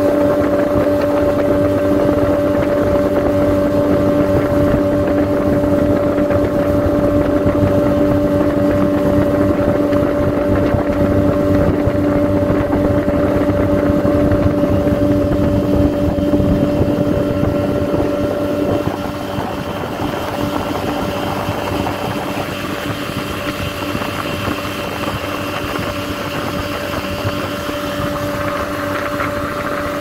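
Boat engine running steadily, a continuous droning hum with a fixed pitch. It eases slightly in loudness about two-thirds of the way through.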